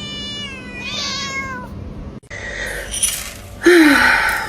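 Cat meowing: long, drawn-out wavering meows, the second rising and then sliding down. After a short break comes a louder, harsh short cry that falls in pitch near the end.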